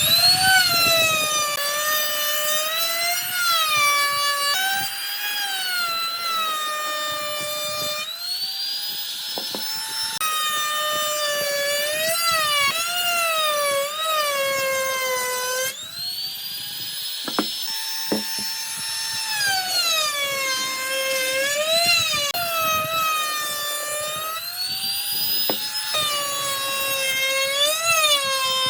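High-speed electric power tool cutting or shaping wood, its motor whine sagging in pitch as it bites under load and rising back as the load eases, with a few brief spin-ups.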